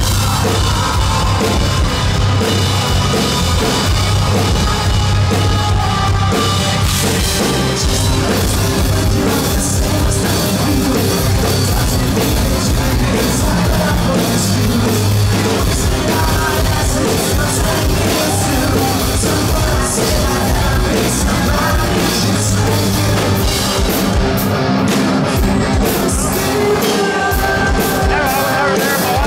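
Hard rock band playing live at full volume: distorted electric guitar, bass guitar and drum kit, with singing over the top.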